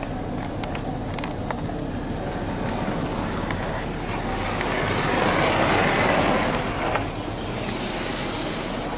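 Ryko Softgloss Maxx car wash spraying tri-foam onto the truck, heard from inside the cab: a steady hiss of spray on the body and glass over a low hum. The spray swells about four seconds in, is loudest around six seconds, then eases off as it passes.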